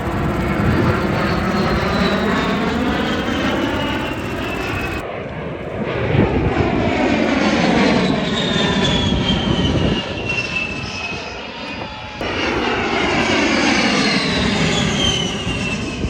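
A-10 Thunderbolt II's twin turbofan engines whining as the jet passes low overhead, a high whine falling in pitch over a loud rushing sound on each pass. The sound breaks off abruptly about five seconds in and again about twelve seconds in, each time picking up on a fresh pass.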